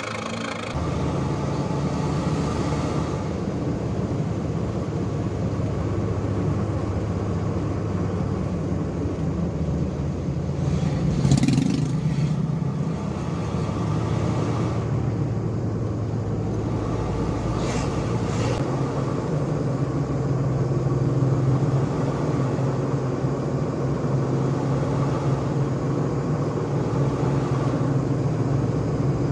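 A Toyota Kijang's engine and exhaust, fitted with a stainless HKS Suos tip on the standard muffler, droning steadily while the car drives, heard from inside the cabin. It briefly gets louder twice, about 11 and 18 seconds in.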